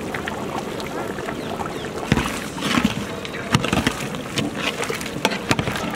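A long metal spatula stirring mutton curry in a big metal pot, sloshing through the gravy and meat. Sharp knocks against the pot come from about two seconds in.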